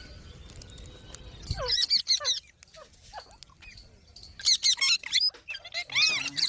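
Pet rose-ringed parakeets (Indian ringnecks) giving short squeaky chirps and chatters in quick clusters, starting about two seconds in and loudest in the second half.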